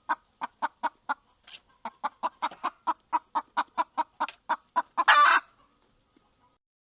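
Rooster clucking in a rapid run of short clucks, about four or five a second, ending in one louder, longer call about five seconds in.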